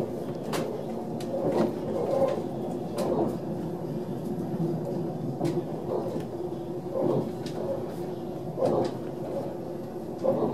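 Ride noise inside a moving Railjet passenger coach: a steady rumble of the running gear with a low hum, broken by irregular knocks and clicks from the wheels and the coach body every second or two.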